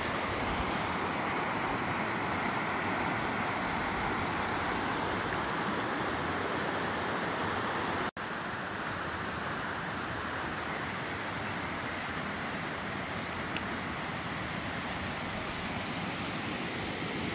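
Small river running over stones: a steady rushing of water, which breaks off for an instant about eight seconds in, with a small click near the end.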